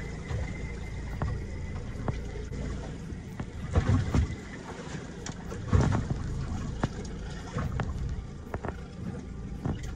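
Water sloshing against a fishing boat's hull over a steady low rumble, with a few small clicks and two louder knocks about four and six seconds in.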